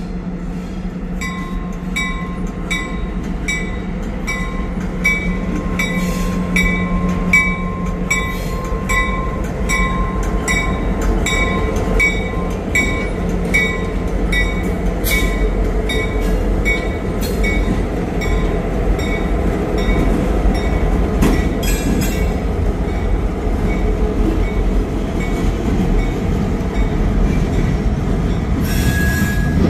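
Freight train rolling past with a steady rumble, its wheels clicking over the rail joints at a regular beat of under two clicks a second; the clicking fades out about two-thirds of the way through while the rumble goes on.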